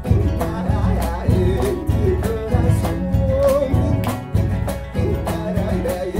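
Background music: a country-style song with plucked guitar and a steady beat, with a singing voice.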